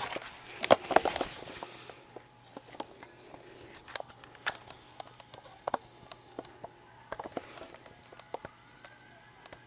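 Handling noise from a handheld camera being moved about close to its microphone: a burst of loud rustling and bumps at the start, then scattered clicks and light knocks.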